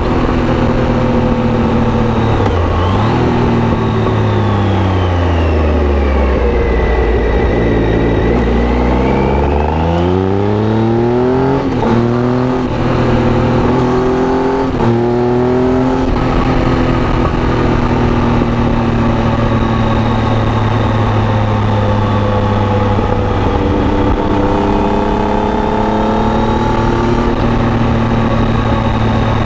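Triumph Tiger 800's three-cylinder engine through an Arrow aftermarket exhaust. The revs fall as the bike slows, then rise again through two upshifts, and the engine runs at fairly steady revs for the rest.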